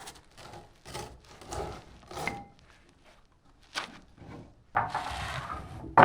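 Scattered light knocks and clatter of things being handled, then about a second of rubbing and scraping near the end, closed by a sharp knock.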